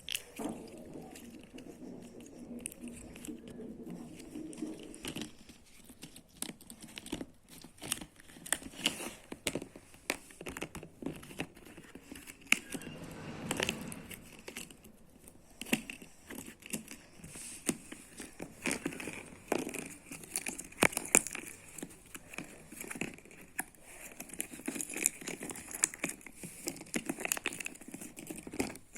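Hands squeezing and stretching slime: irregular clicks and crackling pops.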